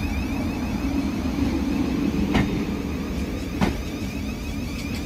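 Thameslink Class 700 electric multiple unit pulling out and running past: low rolling rumble under a high electric traction whine in several tones that keep sweeping upward. Two sharp clicks, a little over a second apart, come about halfway through.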